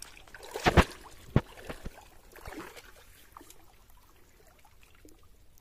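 Shallow muddy water splashing and sloshing as someone wades through it, with one loud splash just under a second in followed by two sharp knocks.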